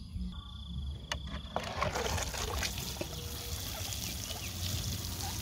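Plastic watering can sprinkling through its rose onto the soil of a vegetable bed: a steady hiss of spray pattering on earth, starting about a second and a half in.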